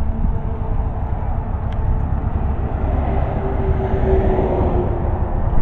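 Road traffic: a passing vehicle's hum swells and dips slightly in pitch about four seconds in, over a steady low rumble.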